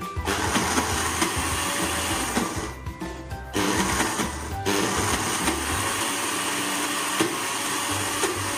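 Electric mixer grinder running at full speed, grinding roasted peanuts with honey and salt into a thick, oily peanut butter paste; the motor's steady whir is mixed with the churning of the thick paste in the jar.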